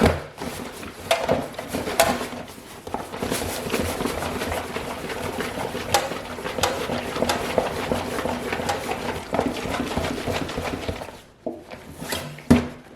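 Water and soapy towels sloshing inside a sealed dry bag as it is shaken to agitate the laundry, a steady busy churning full of small splashes. It eases off near the end, followed by a couple of sharp knocks.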